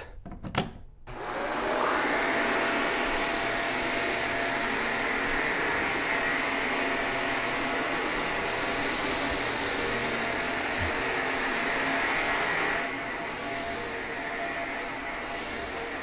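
Shark Apex DuoClean Zero-M upright vacuum switched on after a few clicks. Its motor spins up with a rising whine about a second in, then runs steadily with its brushroll on carpet. It gets a little quieter about three quarters of the way through.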